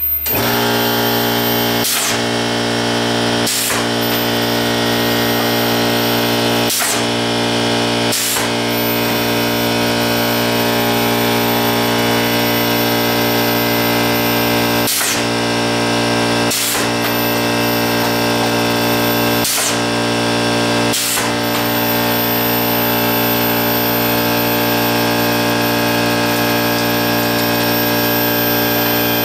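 An air compressor runs steadily while a pneumatic can crusher cycles. Its sharp air blasts come in pairs about a second and a half apart, four times, as cans are crushed.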